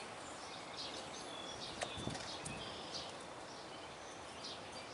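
Faint outdoor background with short, high bird chirps scattered through it, and a couple of light clicks about two seconds in.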